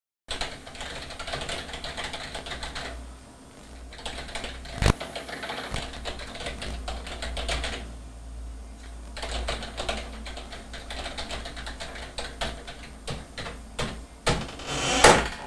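Typing: rapid, irregular key clicks, with a sharp knock about five seconds in and a louder clatter near the end.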